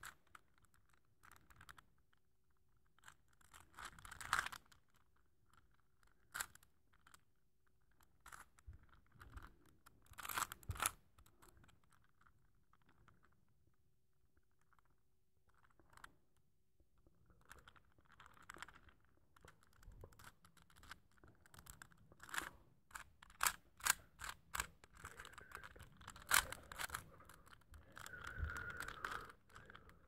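Plastic Rubik's cube being twisted by hand close to the microphone: layers clicking and scraping in irregular bursts, sparse at first, then quick runs of clicks in the second half.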